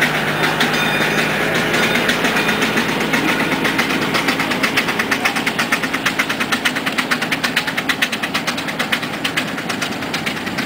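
Half-scale steam traction engine chuffing as it pulls a loaded wagon past, its exhaust beating rapidly and evenly, clearest about halfway through.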